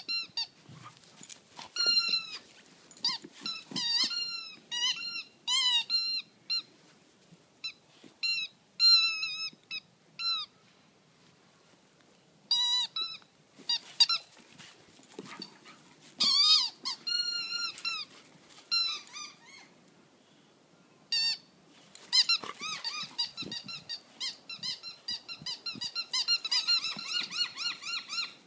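A puppy chewing a rubber squeaky dog toy, making it squeak over and over in short, high squeaks that come in irregular clusters with brief pauses, and in a quicker run near the end.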